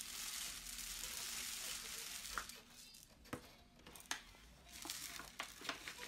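Dry rice grains pouring into a cardboard paper-towel tube: a steady hiss that fades out about two and a half seconds in. After that, a handful of sharp clicks and paper crinkling as the tube is handled and a paper cap is picked up.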